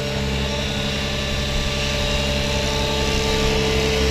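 Align T-Rex 700E electric RC helicopter in flight: a steady motor whine and rotor hum over a low rumble.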